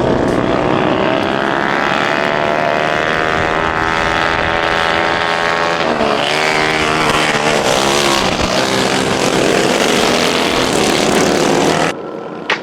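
Racing lawn mower engines running hard, their pitch climbing as they accelerate and swinging up and down as the drivers get on and off the throttle. The sound drops away abruptly near the end.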